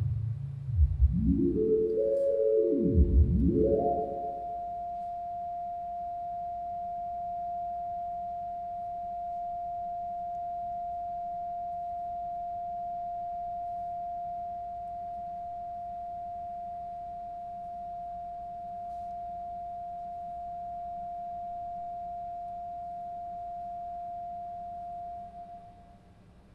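Theremin: a few low, swooping glides rising and falling over the first four seconds, then one steady high pure tone held for about twenty seconds before fading out near the end.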